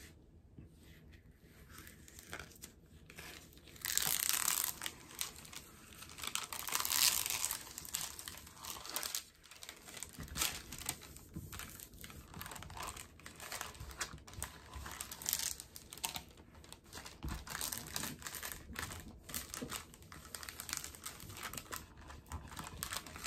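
Clear plastic sleeve around a diamond painting canvas crinkling as hands smooth it flat and handle it: irregular rustling, loudest about four seconds in and again about seven seconds in, then smaller crackles.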